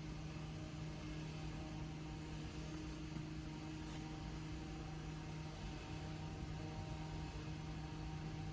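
A steady low hum with a fainter, higher tone above it, over a background hiss.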